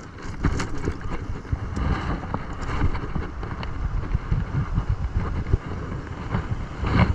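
Wind buffeting the microphone in an irregular, gusty low rumble, with scattered short knocks and rustles.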